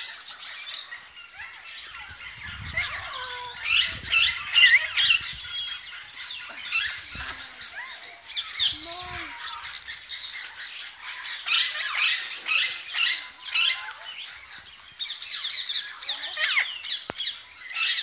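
A flock of parakeets squawking and chattering, with many short shrill calls overlapping without a break.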